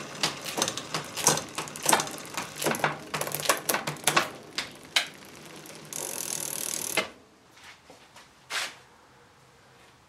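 Bicycle drivetrain turned by hand on a workstand: the chain runs over the Campagnolo rear derailleur, cassette and chainring with irregular clicking and rattling. It goes on for about seven seconds and then stops, leaving near quiet with one soft knock.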